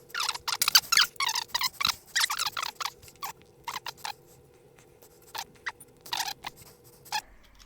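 A screw being driven with a Pozidriv bit, giving rapid squeaking bursts, thickest in the first three seconds and then more scattered, over a faint steady hum.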